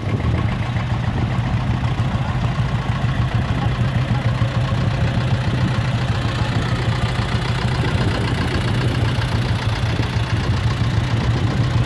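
Vintage tractor engine running steadily at low speed as it drives slowly past close by, with a Unimog truck's engine following behind it; a strong, even low hum throughout.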